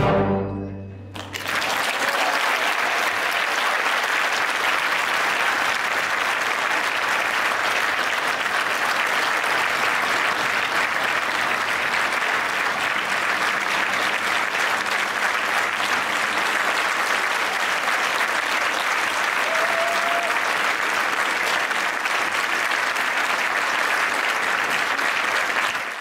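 The orchestra's final chord dies away about a second in, and steady audience applause follows.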